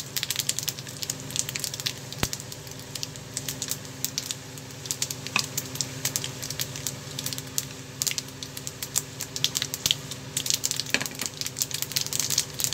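Hot oil sizzling in a small frying pan as mustard seeds, urad dal and dried red chillies fry for a tempering, with frequent sharp pops and crackles throughout.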